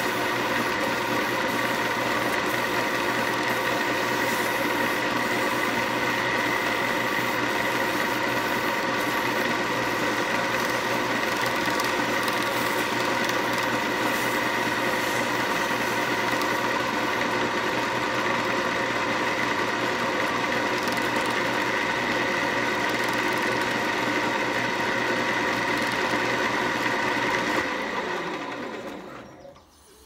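Wood lathe motor running steadily at speed while 600-grit sandpaper is held to the spinning snakewood pen blank, then switched off near the end, its pitch falling as it winds down to a stop.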